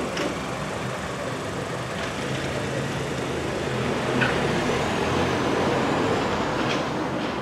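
Road vehicle engines running in steady traffic noise, a little louder from about four seconds in.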